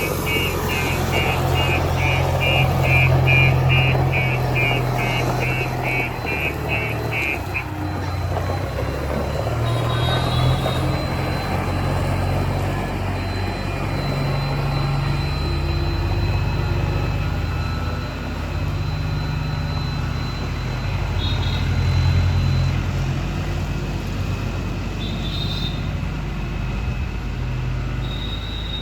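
JCB 3DX backhoe loader's diesel engine running while the machine drives, its low rumble rising and easing. A high beep repeats about two to three times a second for roughly the first eight seconds, then stops.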